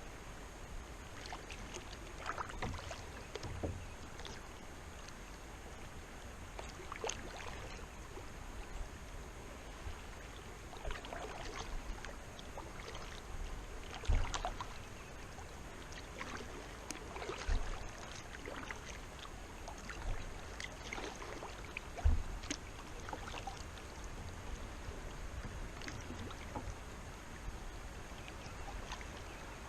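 Kayak paddle strokes dipping and splashing in flowing river water, irregular strokes every second or two, with a few low thumps.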